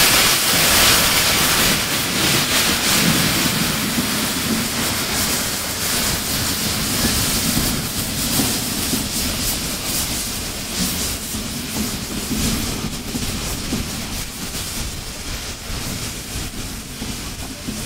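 Narrow-gauge steam locomotive pulling a train of coaches away: a loud hiss of steam that fades gradually, over the chuff of its exhaust and the rumble of the coaches on the track.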